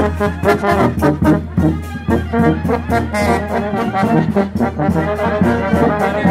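Brass band playing, horns carrying a tune over a tuba and a steady beat.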